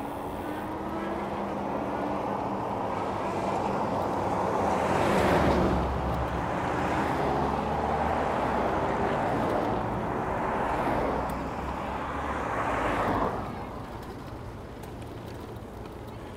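Road traffic passing close by: several vehicles swell up and fade away one after another. The loudest comes about five seconds in and the last about thirteen seconds in, each with tyre hiss and a faint engine tone sliding in pitch as it goes by.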